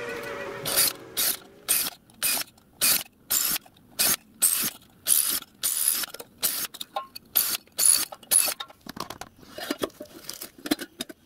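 Cordless drill run in short, repeated bursts, about two a second, each a harsh clicking rattle, while drilling M3 clearance holes in brass sheet and driving small screws into the tank covers.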